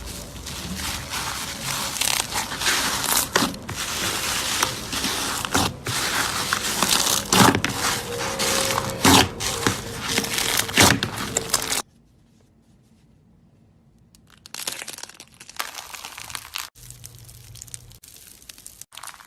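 Slime being squeezed and pulled by hand, with dense crackling and popping for about twelve seconds. It cuts off suddenly, and after a short quiet gap a second slime clip starts with separate, softer squishes and crackles.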